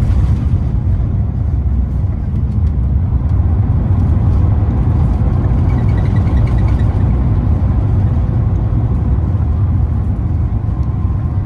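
Loud, steady low rumble heard inside the cabin of an Airbus A350 airliner during its landing roll on the runway.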